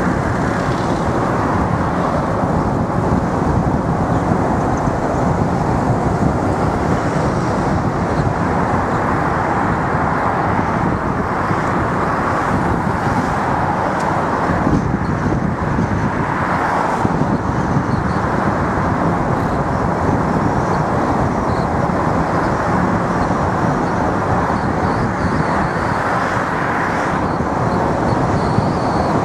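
Steady road noise of a car being driven along at an even pace: a constant noise of tyres and engine with no sudden events.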